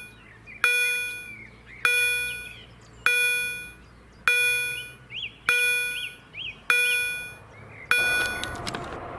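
A bell struck seven times at an even pace, about once every 1.2 seconds, each strike ringing out and fading, with small birds chirping between strikes. Near the end it changes to a steady outdoor rushing noise.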